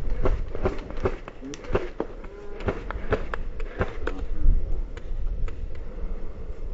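Sharp, irregular snapping clicks of airsoft guns firing single shots, thickest in the first few seconds and thinning out, over a low rumble of wind and movement on the microphone.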